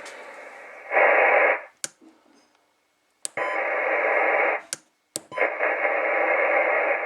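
Ranger AR-3500 radio's speaker hissing receiver static that cuts in and out three times, each burst starting or stopping with a sharp click.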